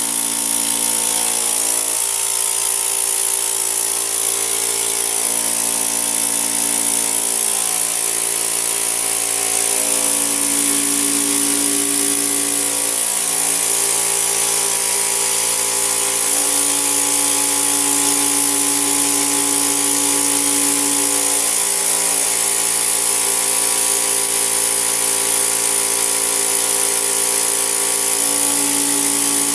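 Vacuum cleaner motor running steadily and loudly, with suction noise at the hose nozzle as it is worked over a fabric sofa. Its whine shifts in pitch every few seconds.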